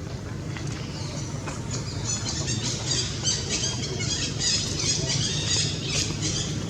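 Rapid, high-pitched animal chirps and squeaks, starting about two seconds in and dying away near the end, over a steady low rumble.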